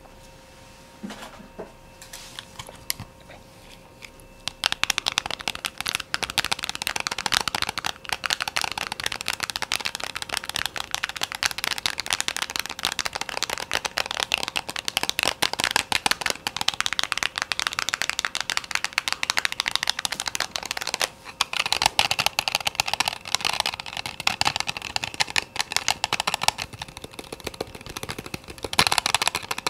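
Rapid, continuous fast tapping made for ASMR, densely packed light taps. It starts a few seconds in after a quieter stretch with only a few taps, and breaks off briefly about two-thirds through.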